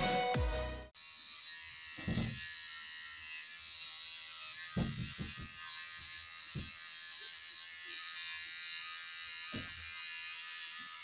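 Electric hair clippers buzzing steadily as they shave a child's head close, with a few low thumps along the way. Background music cuts off about a second in.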